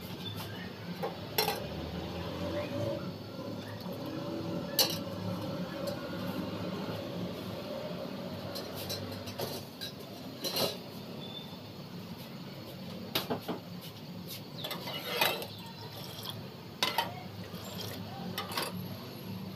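Steel ladle clinking against an aluminium saucepan of heating milk: about seven sharp clinks spread a few seconds apart, over a steady low hum.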